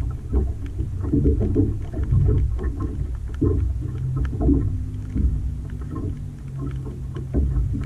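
Water lapping against the hull of an aluminum SeaArk boat: irregular low, hollow slaps and gurgles that swell and fade, with small ticks scattered through.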